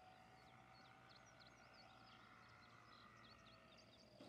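Near silence: faint bird chirps, many short calls in quick succession, over quiet field ambience, with a faint steady whine that drops slightly in pitch near the end.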